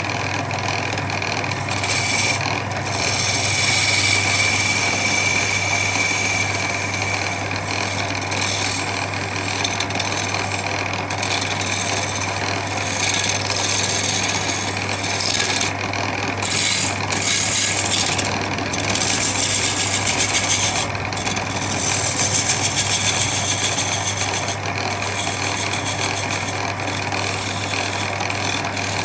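Handheld electric power tool running continuously and working the wood, a steady motor hum under a loud grinding rasp. The grinding swells and eases as the tool bites and lifts, with brief drops around the middle and later on.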